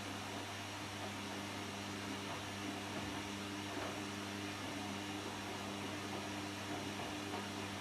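Washing machine running with laundry inside, a steady motor hum under an even noise.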